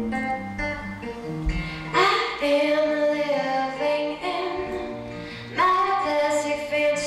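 A girl singing to her own acoustic guitar accompaniment. The guitar plays alone at first, and her voice comes in about two seconds in, breaks off briefly, then comes back near the end.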